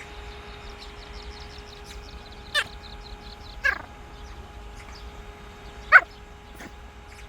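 Pomeranian barking three times in short, sharp barks, about two and a half, three and a half and six seconds in, over the steady hum of an electric fan.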